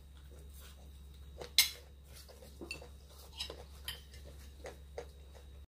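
Cutlery clinking against plates during a meal, about seven light, sharp clicks, the loudest about one and a half seconds in, over a low steady hum. The sound cuts off abruptly just before the end.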